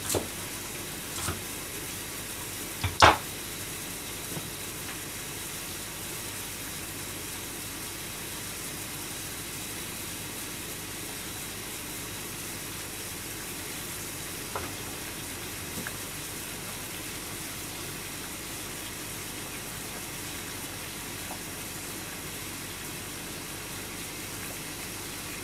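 Steady kitchen stove noise: a gas burner and range hood fan running while a pot of water boils. A single sharp clack about three seconds in, the loudest sound, and a few faint knocks later.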